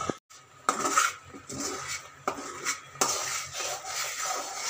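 Flat metal spatula scraping and stirring a thickening milk-and-jaggery mixture against the bottom and sides of a metal kadai, in irregular strokes. It is milk being reduced to khoa, kept moving so it does not stick as it thickens.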